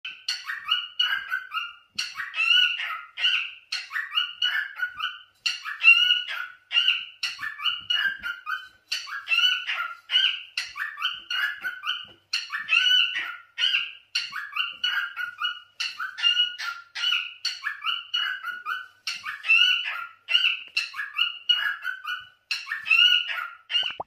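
Lutino cockatiel singing: a long run of short, chirpy whistled notes, several a second, broken by brief pauses.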